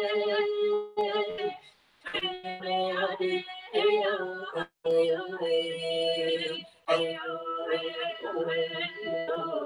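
A woman singing long, held wordless vocables in phrases of a second or two, with short breaks between them.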